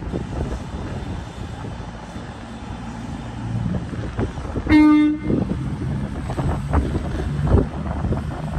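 CrossCountry Voyager diesel multiple unit running into the station, with a low rumble of engines and wheels on the rails. About five seconds in it gives one short horn blast, the loudest sound here.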